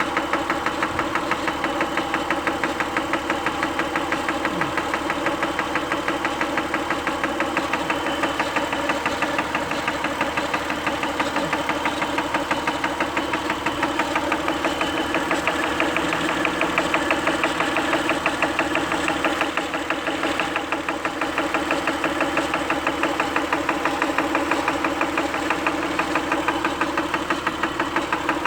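Acura engine running with a fast, even ticking, the noise of unknown cause that the owner is asking for help with.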